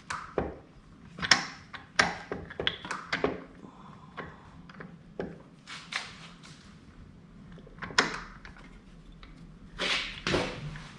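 Scattered metal clicks and knocks of an engine cover being worked onto a motorcycle engine while the shift drum shaft is wiggled to line it up. The sharpest knocks come about one and two seconds in and again near the end.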